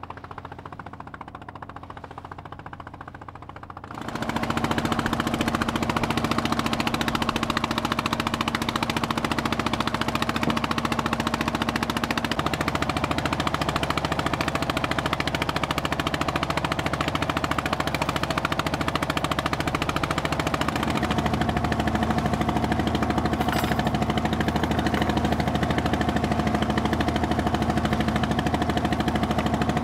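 A small wooden fishing boat's engine running steadily, a loud drone of rapid even pulses with a steady hum. It cuts in abruptly about four seconds in after a quieter start.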